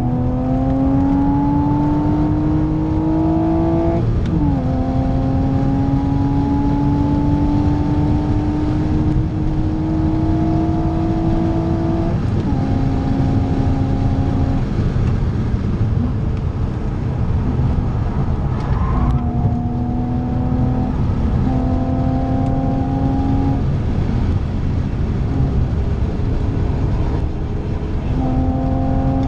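BMW Z4 3.0i's M54 straight-six heard from inside the cabin under hard acceleration on track, its pitch climbing through the revs. It drops sharply about four seconds in as it shifts up, climbs again, then goes off and back on throttle a few times, over constant tyre and road noise.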